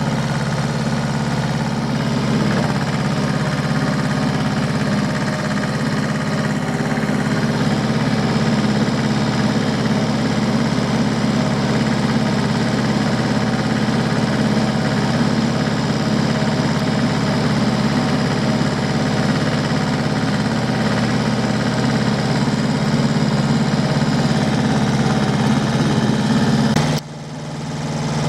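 Diesel tractor engine running steadily at an even speed. Near the end the sound drops away suddenly and swells back in.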